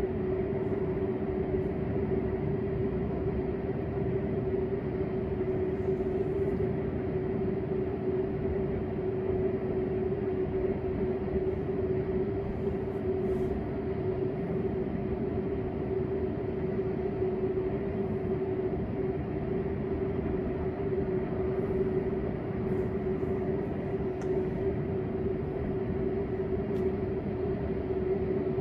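Steady mechanical drone with a constant mid-pitched hum over a low rumble, unchanging throughout.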